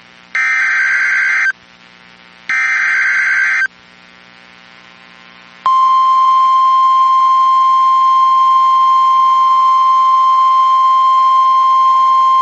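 Emergency Alert System SAME header: two bursts of digital data tones, each about a second long and a second apart. About six seconds in, the steady single-tone attention signal near 1 kHz starts and holds; this is the National Weather Service's 1050 Hz warning alarm, which signals that a warning message follows.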